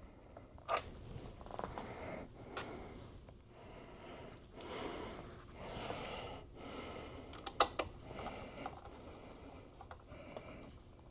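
Small handling clicks and soft scraping of a screwdriver and small screws being worked into the iMac's logic board, with a few sharp clicks about a second in and again near two-thirds of the way through.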